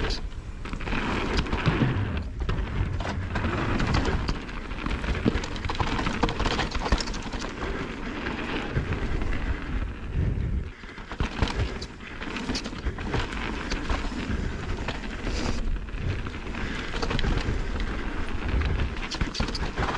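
Mountain bike descending a dirt and rock trail: tyres rolling over the ground with frequent rattles and knocks from the bike, under heavy wind rumble on the camera's microphone.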